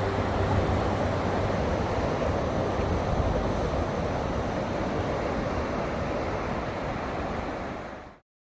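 Ocean surf washing ashore, with wind on the microphone. The sound fades out about eight seconds in.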